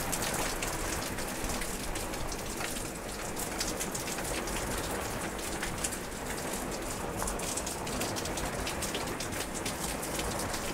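Steady heavy rain falling on vegetation, a dense even hiss peppered with the crisp ticks of individual drops landing close by.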